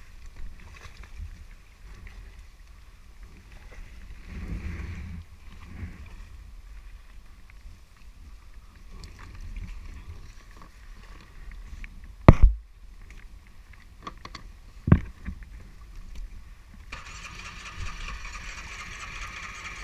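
Low rumble of wind and water, broken by two sharp knocks about twelve and fifteen seconds in; a few seconds before the end a steady hum comes in.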